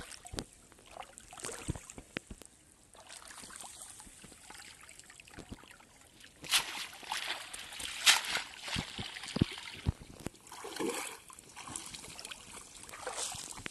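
Shallow water splashing and sloshing as a wet cast net is gathered and lifted out, with water running off it and a few sharper splashes a little after the middle. Near the end come softer rustles as the net is handled on the grassy bank.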